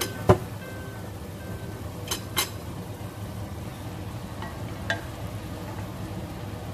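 Wooden spatula knocking against a stainless steel wok of mackerel cooking in sauce, over steady sizzling. There is a sharp knock just after the start, two more about two seconds in and one near five seconds.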